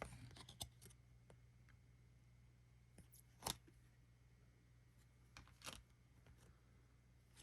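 Near silence broken by a few short, faint rustles and clicks of trading cards being handled and slid, the clearest about three and a half seconds in.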